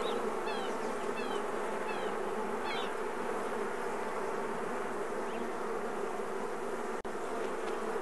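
A honeybee colony humming steadily around an opened Langstroth hive as its brood frames are handled. Short high falling chirps repeat about twice a second over the first three seconds.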